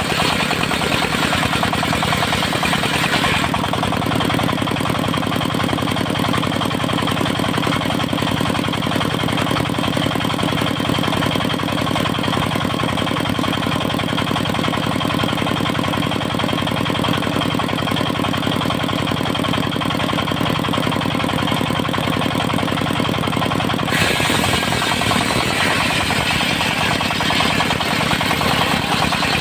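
Engine of a sawmill circular-saw rig running steadily at constant speed. A harsher hiss joins it for the first few seconds and again over the last five seconds.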